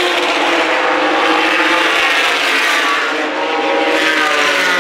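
A pack of race trucks running at speed on an asphalt oval, several engines heard at once, their pitch rising and falling as the trucks pass.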